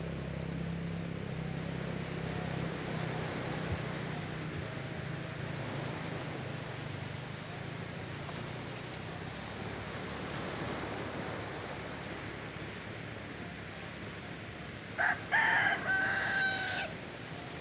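Small waves washing on the shore in a steady hiss, with a low hum that fades out around the middle. Near the end a rooster crows once, for about two seconds.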